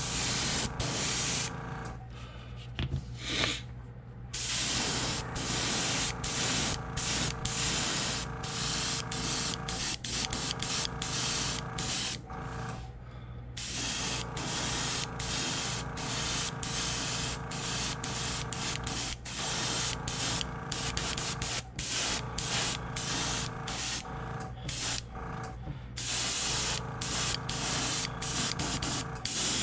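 Airbrush spraying white base-coat paint in many short hissing bursts as the trigger is pressed and released, with a few longer pauses, over a steady low hum.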